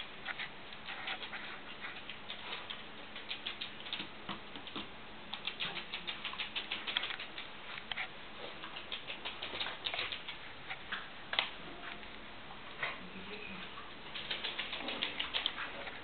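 A small dog's claws clicking and pattering on a wooden floor as it trots about, in quick irregular runs of light ticks.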